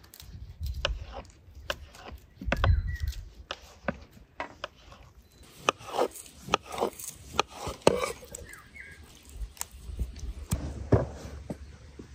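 A knife knocking irregularly on a cutting board as fruit is chopped.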